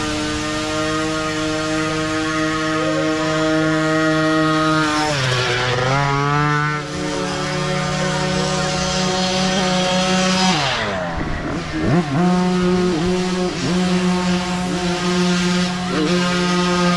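Several small micro-class dirt bike engines running at once, with a high, buzzing note. Revs dip and climb again about five seconds in, and again more sharply around eleven seconds in.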